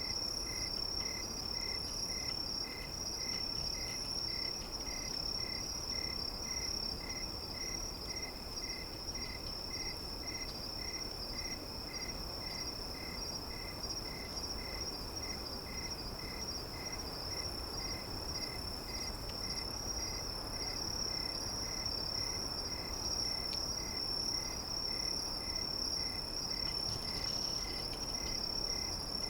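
Insects trilling: a steady high continuous trill with a lower chirp pulsing about twice a second, over a soft background hiss.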